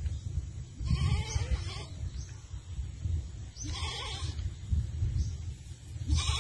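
An animal calling three times, each wavering call lasting about a second, over a low steady rumble.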